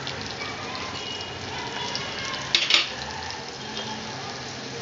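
Chopped onion sizzling in hot oil in a kadai, fresh in the tempering of cumin seeds, green chili and hing: a steady frying crackle, with a short louder burst a little past halfway.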